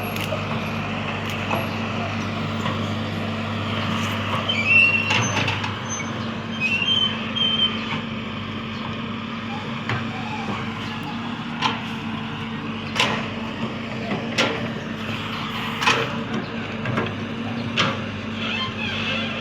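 Excavator's diesel engine running steadily, with repeated sharp knocks and clanks and a few brief high squeals about five to eight seconds in.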